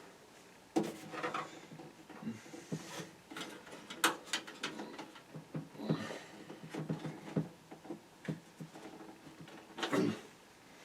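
Plastic computer-case parts being worked by hand: irregular clicks, knocks and rattles as a stuck drive bay cover is pushed and pried at its retaining tabs. The sharpest knocks come about four seconds in and again near the end.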